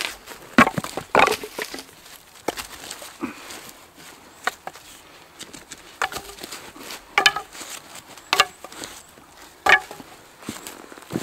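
Firewood being chopped by hand: a series of sharp strikes of blade into wood, roughly one every second or so, some louder than others.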